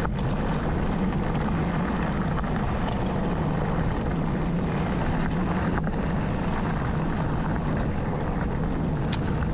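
Steady wind rush buffeting an action-camera microphone as a mountain bike runs downhill, with a few faint clicks from the bike.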